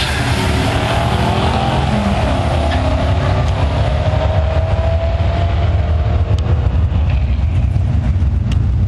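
Two drag-racing cars, one of them a Ford Mustang, running hard down the strip. Their engine noise drops in pitch and fades over the first several seconds as they pull away, over a steady low rumble.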